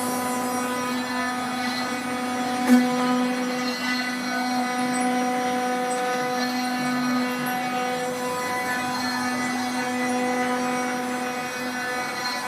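Three-axis CNC machine running, its motors giving a steady whine that holds one pitch throughout, with a single sharp click a little under three seconds in.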